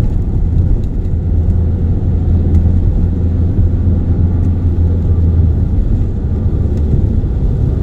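Car driving on a wet road, heard from inside the cabin: a steady, loud low rumble of engine and tyres, easing slightly about two-thirds of the way through.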